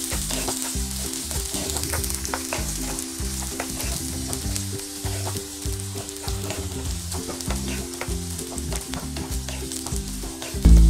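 Chopped onions and peanuts sautéing in hot oil in a nonstick pan: a steady sizzle, with frequent short scrapes and taps as a wooden spatula stirs them.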